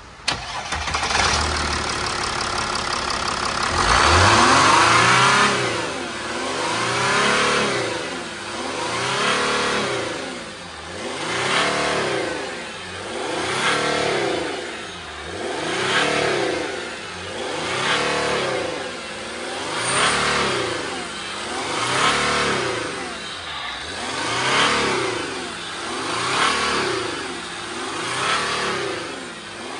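Mercedes ML 280 CDI's 3.0 V6 diesel running at idle, then revved hard about four seconds in, followed by repeated throttle blips that rise and fall about every two seconds. It revs freely with the EGR, air-mass meter, swirl and throttle connectors unplugged, no longer held in limp mode.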